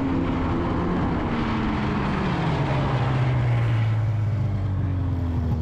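Snowmobile engine running, its pitch dropping as the revs fall back about two and a half seconds in, then holding a steady low idle.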